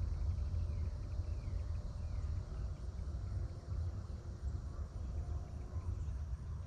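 Outdoor ambience, mostly a gusty low rumble of wind on the microphone, with a few faint high chirps over it.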